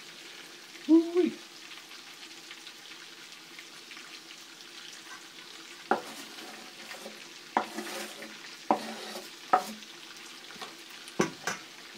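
Steady sizzle of bacon frying in a pan, with a short vocal sound about a second in and, from about halfway, a few sharp knocks of a chef's knife on a wooden cutting board as chopped onion is gathered up.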